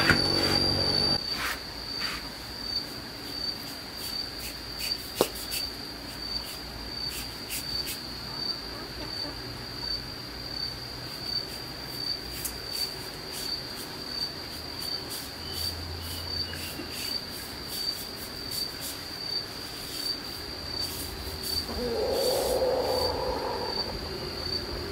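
An insect chirping in a steady high trill that pulses a little faster than once a second. Near the end a lower, mid-pitched sound joins it.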